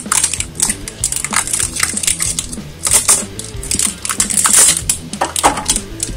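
Clear plastic shrink-wrap crinkling and crackling in dense, irregular bursts as it is peeled off a Pokémon trading card product.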